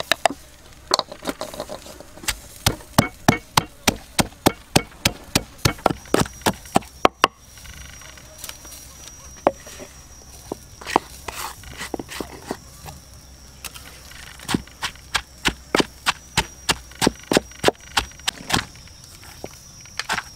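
Wooden pestle pounding in a wooden mortar: repeated sharp wooden knocks, about two to three a second, with a couple of short pauses, as seasonings and shredded vegetables are bruised together.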